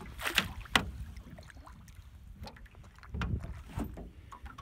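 A few short splashes and knocks at the side of a small fishing boat as a hooked striped bass thrashes at the surface, the two strongest in the first second, over a low wind rumble on the microphone.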